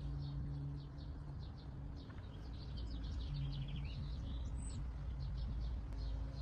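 Birds chirping and twittering in quick runs of short notes, with one brief high whistle about halfway through, over a steady low hum.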